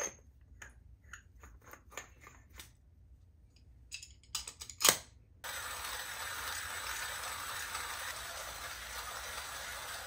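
Eureka Baby hand coffee grinder: small clicks and knocks as it is handled, with a louder knock about halfway through. Then a steady grinding noise of coffee beans being crushed between the burrs as the crank is turned.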